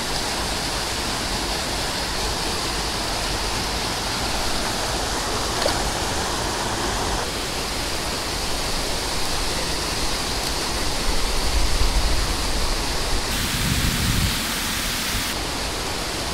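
Steady rushing of fast, high-running stream water pouring over a waterfall, with a brief low rumble about twelve seconds in.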